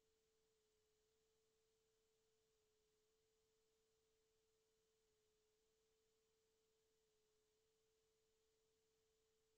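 Near silence, with a faint steady tone just under 500 Hz that shifts slightly in pitch now and then.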